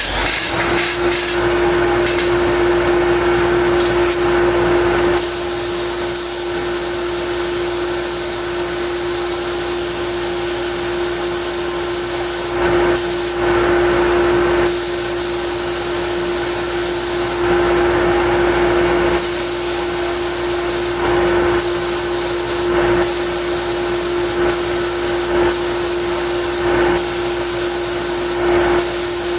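A paint spray gun hissing as primer sealer is sprayed, broken by short pauses several times, over the steady hum of the motor that supplies its air.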